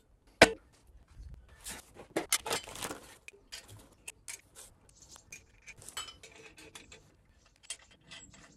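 Metallic knocks and clinks as the two halves of a VW Type 1 magnesium engine case are fitted together and the case nuts are handled on the studs. One sharp knock about half a second in is the loudest, followed by a cluster of clinks and scattered lighter clicks.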